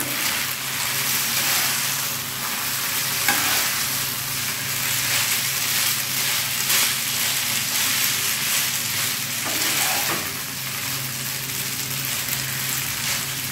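Boiled noodles sizzling in oil in a nonstick frying pan while being stirred and tossed with a wooden spatula, a steady hiss with a low hum underneath.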